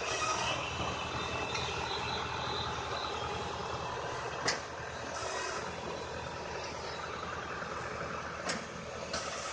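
New Holland tractor's diesel engine running steadily while driving a firewood processor through its PTO, with the machine's steady working noise. A few sharp knocks from the processor sound about halfway through and twice near the end.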